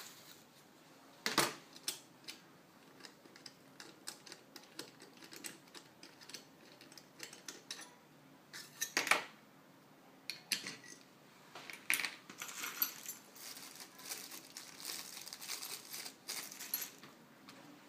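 Small metal parts of a knife sharpener clicking and clinking as they are handled on a tabletop, with two louder knocks about a second and a half in and about nine seconds in. From about twelve seconds in, a small plastic bag crinkles as it is opened.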